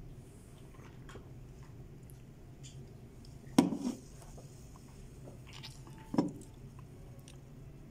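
Two short knocks about two and a half seconds apart, over a steady low room hum.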